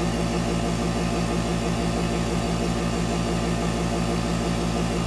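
Airbrush compressor motor running steadily, an even low hum with a fast, fine throb.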